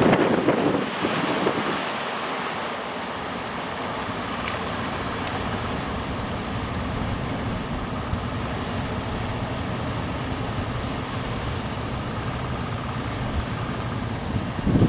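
Strong wind buffeting the microphone over breaking surf, louder in the first second or two. A fishing boat's engine drones low and steady underneath.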